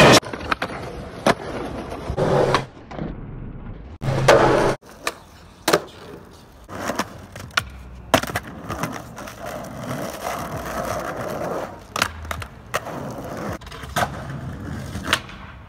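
Skateboards on concrete across several clips: urethane wheels rolling, broken by sharp tail pops and board landings clacking down.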